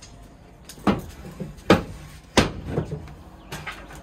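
A series of sharp knocks and thumps: three loud ones under a second apart, then several lighter taps near the end, the sound of things being handled and set down on a wooden verandah while a pine board is set up for cutting.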